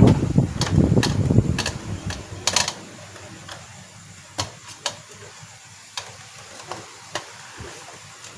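Scattered sharp clicks and light taps of plastic parts being handled as a projector's cover is fitted back on, over a low rumble that stops about three seconds in.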